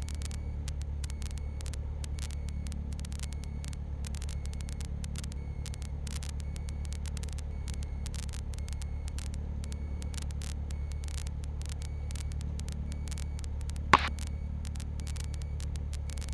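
Cessna 172 Skyhawk's piston engine idling steadily, heard from inside the cabin as a low drone. A single sharp click about 14 seconds in.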